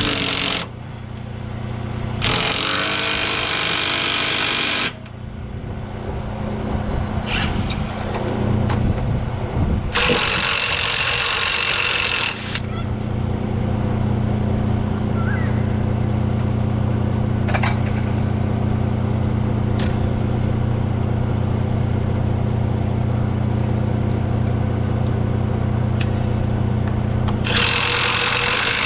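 Cordless impact wrench hammering on truck torque rod bolts in several bursts of a few seconds each, with long pauses between. An engine idles steadily underneath.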